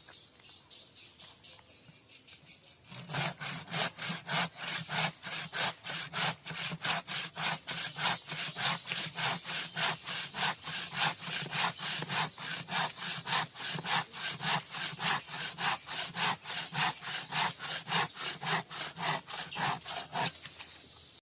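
Bushcraft frame saw, built from an old saw blade, cutting through wood by hand in quick, even strokes, about three a second. The strokes are light for the first few seconds, then become loud and steady, and stop shortly before the end.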